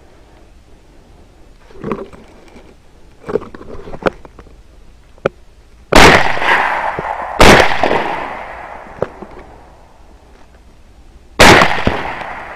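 Three rifle shots, two about a second and a half apart and a third some four seconds later, each dying away over a second or more. A few fainter clicks and knocks come before the first shot.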